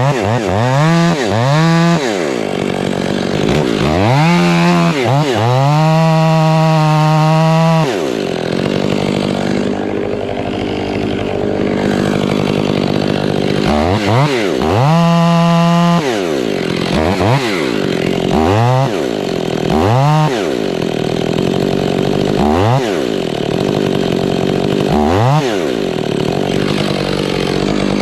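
Two-stroke chainsaw revved up and down over and over, with two longer stretches held at full speed, as when cutting wood.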